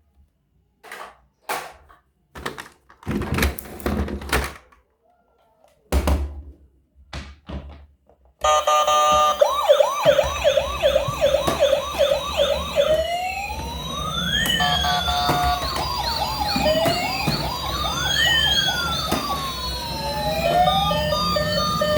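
A few short knocks and rattles of plastic toys being handled. About eight seconds in, several battery-powered toy police car and ambulance sirens switch on together: a fast repeating yelp and slower rising-and-falling wails overlap, with steady electronic tones under them.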